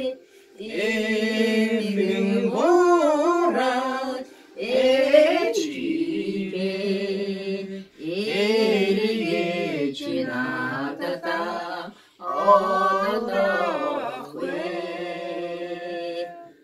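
A person singing a Mongolian song unaccompanied, in long drawn-out phrases of held, wavering notes, with short breaks for breath between them.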